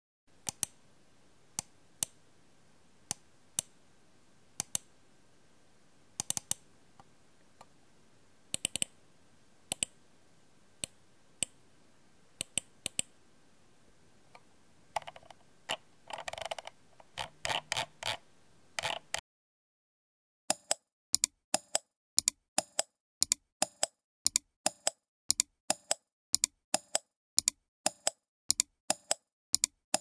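Computer mouse buttons clicking. Single clicks come at uneven intervals, with a quicker flurry of clicks about three-quarters of the way through the first half. After a short pause, a steady run of sharp clicks follows at about two to three a second.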